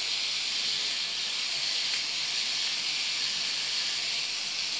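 Energised contactor with a non-original replacement coil giving a steady buzzing noise: the gap in the coil's magnet portion is loose, so the core vibrates inside.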